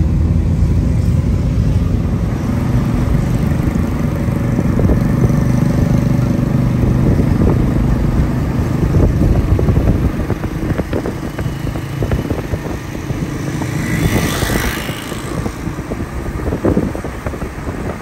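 Road traffic heard from a moving car: a steady low engine and road rumble, with small motorcycles running close alongside. About three-quarters of the way through there is a brief louder rush of noise.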